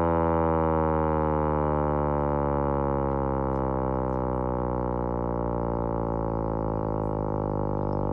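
Vixen Horns VXS-1200M hand-crank siren winding down: its many-toned wail falls slowly and steadily in pitch and fades a little.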